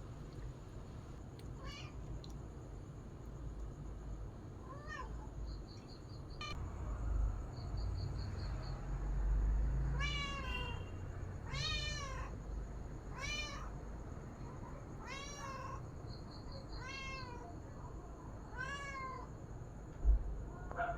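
Cat meowing over and over: a few faint meows, then louder ones about every one and a half to two seconds from about ten seconds in. A single sharp thump comes near the end.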